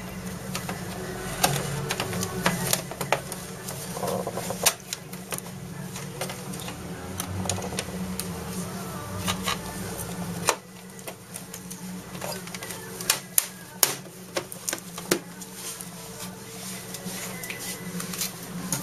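An HP inkjet all-in-one printer gives off irregular, sharp plastic clicks and knocks as it is worked on, over a steady low hum. It gets a little quieter about ten seconds in, but the clicks carry on.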